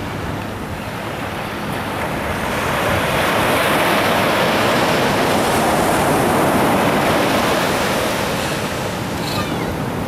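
Ocean surf: a wave breaking and washing up the beach, swelling over a few seconds and then easing off, with wind rumbling on the microphone.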